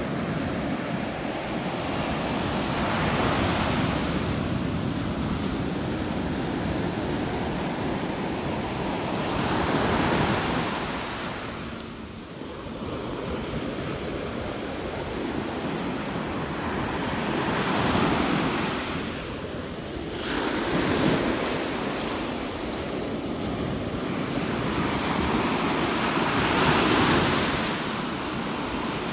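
Small surf breaking and washing up the sand at the shoreline, swelling and fading about five times, with wind rumbling on the microphone.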